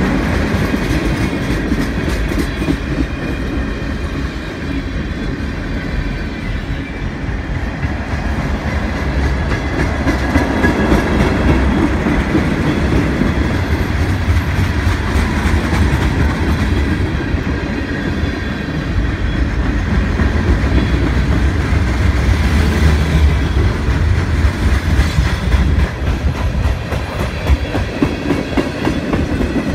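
Freight train of tank cars rolling past at close range: a steady low rumble of wheels on rail, with repeated clicks and clatter as the wheels pass over the rail joints.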